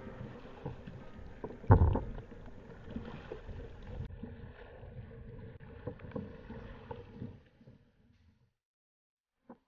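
Choppy water splashing and sloshing against a sit-on-top kayak's plastic hull, with a loud thump about two seconds in. The sound drops almost to silence for the last second or two.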